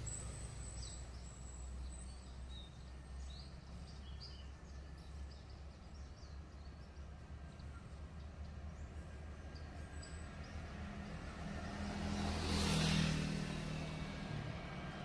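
Low, steady rumble of a jet airliner on final approach, still some way off, over outdoor background noise. Small birds chirp during the first few seconds, and a brief swell of louder noise passes about thirteen seconds in.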